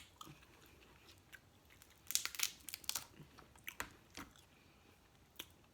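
Close-miked eating: a quick run of sharp crunches and cracks about two seconds in, dying away after a couple of seconds, with one more near the end.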